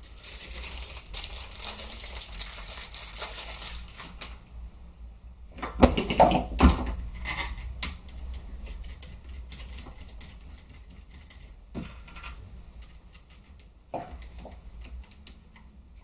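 Rapid small clicks and taps of screws and a screwdriver being worked into the plastic body of an airsoft G36 replica, with a few louder knocks about six seconds in and scattered single clicks later.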